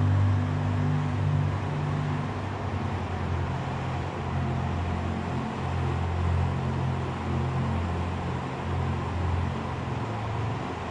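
Slow, low ambient music: deep sustained tones that shift every second or two, over a steady hiss.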